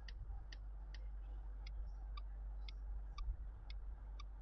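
Clock ticking steadily at about two ticks a second, every other tick with a lower tock, over a low steady hum.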